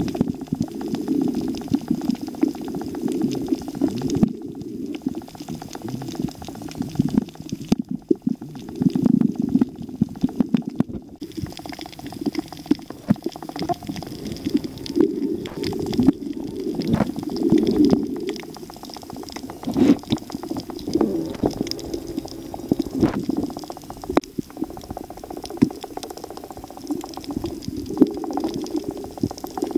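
Muffled underwater water noise picked up by a submerged camera: a steady rumbling and bubbling, with scattered sharp clicks throughout.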